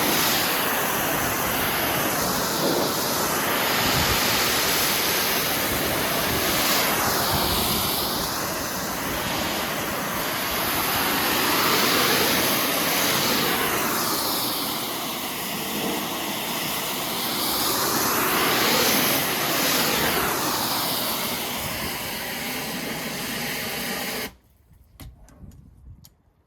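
Pressure-washer spray hissing steadily against composite deck boards, the sound swelling and thinning as the wand sweeps. It cuts off suddenly near the end, leaving a few faint ticks.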